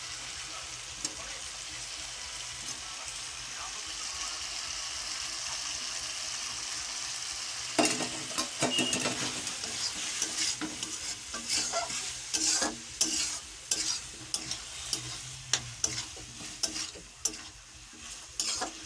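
Sauce-coated chicken and onions sizzling in a black wok with a steady hiss. From about eight seconds in, a metal spatula stirs the food and knocks and scrapes against the pan in quick, irregular strokes.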